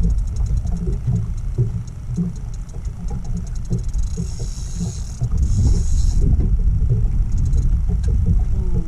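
Wind buffeting the microphone in a steady low rumble, with small knocks and a light, fast high ticking that comes and goes, densest about halfway through.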